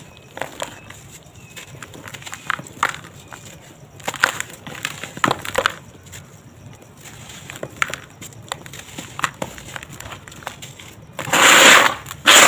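Dry sand-cement lumps crushed and crumbled by hand over a plastic tub: crisp crunching and crackling in short bursts, with a much louder, dense crunch a little past eleven seconds and another at the very end.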